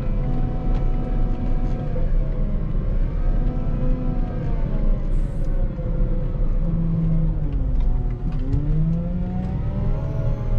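Volvo L60H wheel loader's diesel engine working under load over a heavy low rumble, its revs dropping and rising again several times, with the deepest dip and climb about eight seconds in.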